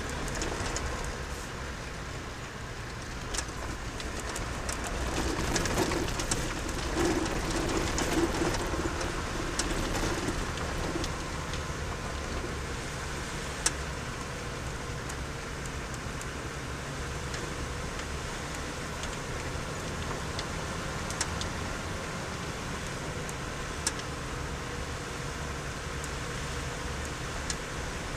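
Car driving on an off-road track, heard from inside: a steady engine and road rumble, with a few sharp single clicks now and then.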